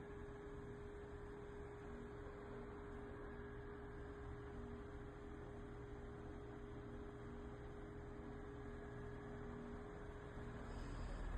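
A faint, steady electrical hum holding one tone, with a fainter second tone that comes and goes.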